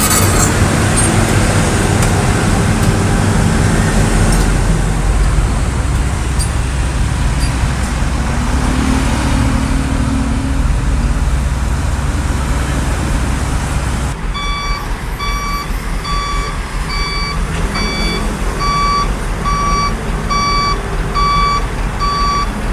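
A truck's diesel engine running with a steady low rumble. About two-thirds of the way in, the engine sound drops and a reversing alarm starts beeping about once a second.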